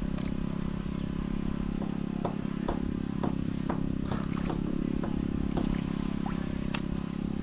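Steady low motor hum, with a run of light, irregular clicks and scrapes from about two seconds in.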